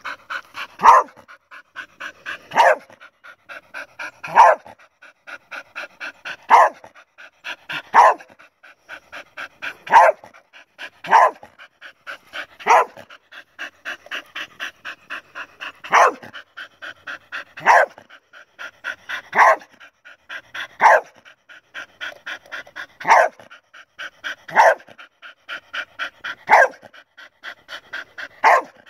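A dog barking in short, sharp barks about every one and a half to two seconds, with fast panting between them. The dog is agitated by a plastic owl decoy held just above it.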